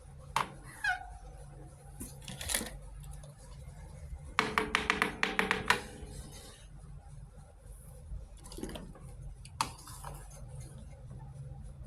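Small plastic toy kitchen pieces clicking and clattering as they are handled: a few single clicks, then a quick run of about ten rattling clicks in the middle, over a low steady hum.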